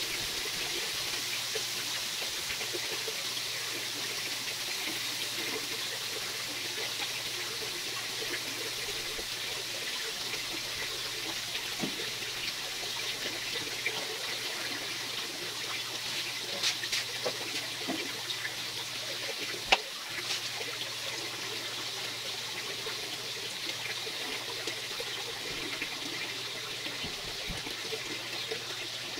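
Chicken fillets sizzling steadily on a tabletop electric grill plate, with a few light ticks and one sharp click about twenty seconds in.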